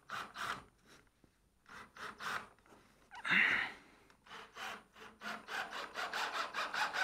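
Scraping and rubbing against timber in short, irregular strokes, turning into a quick run of strokes near the end.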